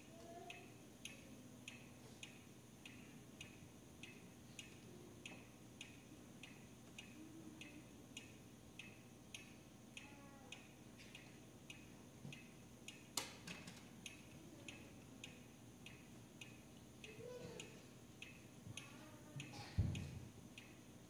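Faint, steady ticking like a clock, about two ticks a second. A sharp knock comes about thirteen seconds in, and a heavier low thud near the end.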